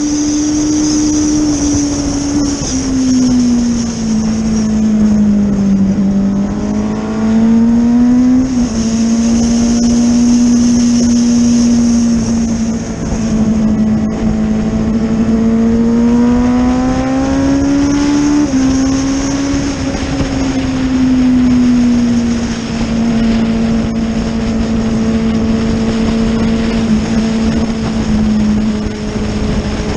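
Racing motorcycle engine heard from an on-board camera at speed, with wind rushing past. The engine note drops a few seconds in, climbs slowly with a sudden small step through gear changes about eight and eighteen seconds in, then eases off and holds steady near the end.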